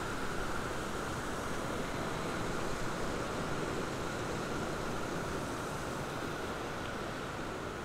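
Water pouring over a low river weir, a steady rushing splash with no breaks.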